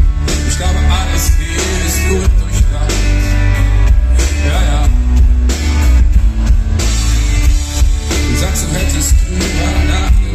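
A live rock band playing loud, with a drum kit and heavy bass.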